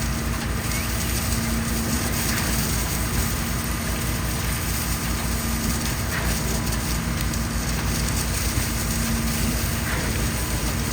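Heavy diesel engine of concrete equipment running steadily at constant speed, a steady low hum with a faint tick now and then.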